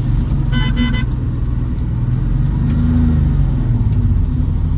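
Maruti SS80's small carburetted engine running steadily as the car is driven, a light sound. A brief car horn toot about half a second in.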